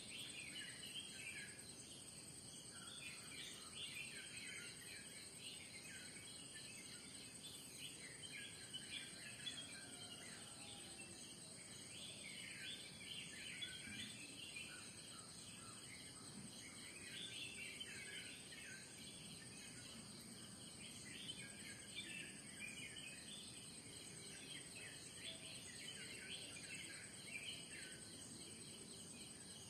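Morning bird chorus: many small birds chirping and calling in quick, overlapping notes over a steady, high-pitched insect drone.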